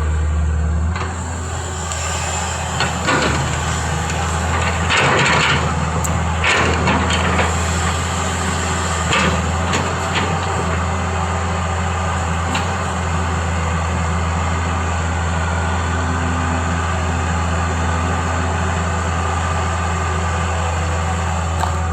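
Excavator's diesel engine running steadily, with a series of knocks and clatters through the first half.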